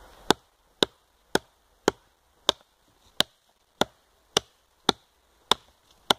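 Small plastic-handled hatchet chopping into a thick wooden branch: a steady run of about eleven sharp blows, roughly two a second.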